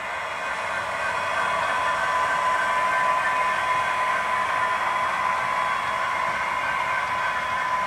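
Model train running past: a steady whirring noise with a few held tones that swells over the first second or two as the model diesel locomotive draws near, then holds.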